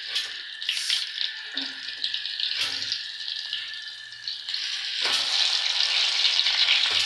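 Potato-and-chicken tikkis sizzling in hot oil as they fry, a steady hiss that grows louder about five seconds in.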